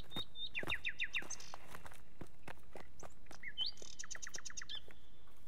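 Birds chirping in two quick runs of short notes, the first a series of falling chirps and the second a rapid repeated trill, over scattered soft footsteps on a dirt path.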